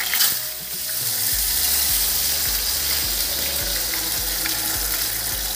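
Whole tilapia frying in hot mustard oil: a loud, steady sizzle that swells in the first second as the fish slides into the pan, then holds even.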